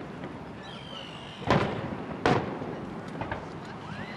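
Fireworks shells bursting: two sharp loud bangs, about a second and a half and two and a quarter seconds in, followed by a couple of fainter pops near three seconds.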